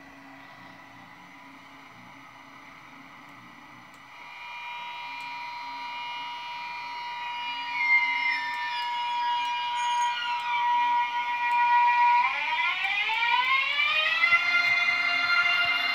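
ESU LokSound V4 sound decoder in an H0 Piko ICE 3 model playing the ICE 3's electric drive sound through the model's small loudspeaker. A steady electric whine of several tones comes in about four seconds in. The tones slide downward for a few seconds, then sweep upward together near the end and hold, as the simulated traction converters change with the train's speed.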